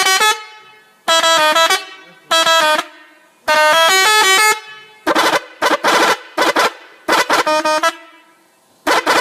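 Multi-tone musical bus horn ('telolet' horn) playing a short stepping tune in repeated bursts, followed by a quick run of short blasts about five seconds in.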